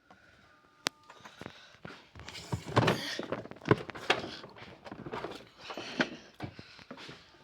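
A washing machine being handled: a faint short tone near the start, a sharp click about a second in, then a run of irregular knocks, thuds and rustles.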